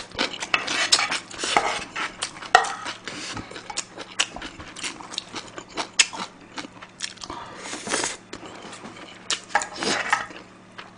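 A spoon clinking and scraping against a frying pan as shrimp fried rice is scooped up, in many short sharp strokes, with close-miked chewing between them.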